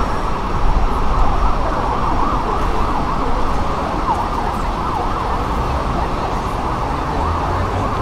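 Busy city-street crowd ambience: many people talking at once over a steady low traffic rumble, at an even level throughout.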